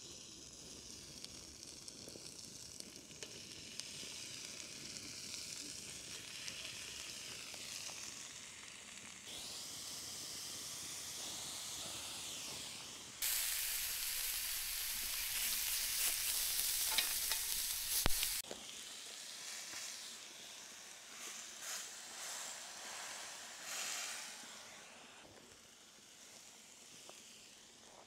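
Food sizzling steadily as it cooks, with a louder stretch of several seconds in the middle that starts and stops abruptly.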